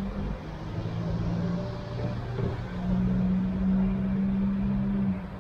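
A road vehicle's engine running close by, a steady low hum that gets louder about halfway through and drops away just before the end.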